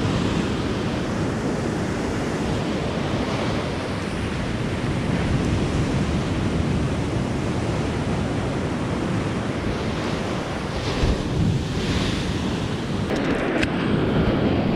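Gulf surf breaking and washing up a sandy beach in a steady rush, with wind buffeting the microphone. A few light clicks near the end.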